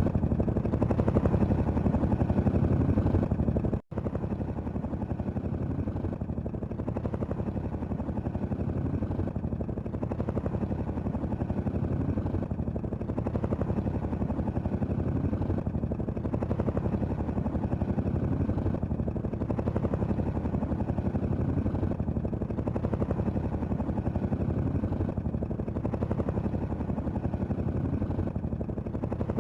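Helicopter running steadily, its rotor blades beating rapidly over the engine. The sound cuts out for an instant about four seconds in and resumes slightly quieter.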